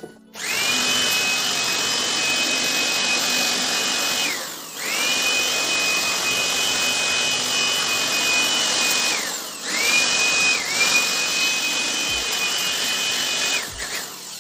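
Handheld electric blower-vacuum running in three spells of about four seconds: steady rushing air with a high motor whine that rises as it spins up each time, briefly dipping once, and it stops near the end.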